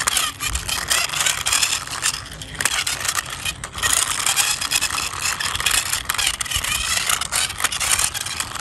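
Small toy jeep's wheels rolling and scraping along a rough outdoor wall as it is pushed by hand: a continuous rasp full of small clicks, dipping briefly a little past two seconds in.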